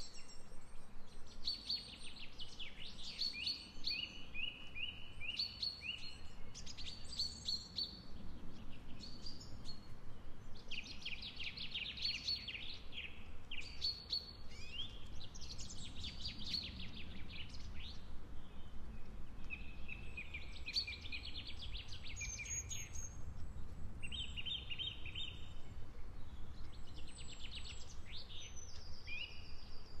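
Several woodland songbirds singing, short varied phrases and trills following one another every second or two, over a low steady background rumble.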